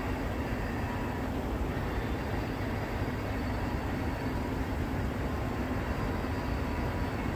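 Distant CN freight train rolling past: a steady low rumble with a few faint tones on top, holding level throughout.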